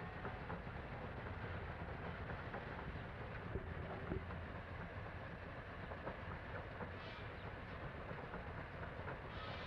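Steam mill machinery running: a steady mechanical rumble with scattered small knocks and clatter, on an old 1966 recording.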